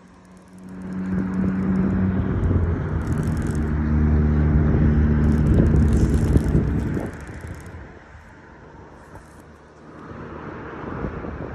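A motor vehicle's engine passing: a steady, pitched engine hum comes up about a second in, stays loud for several seconds and fades about seven seconds in, with a fainter swell of engine noise near the end.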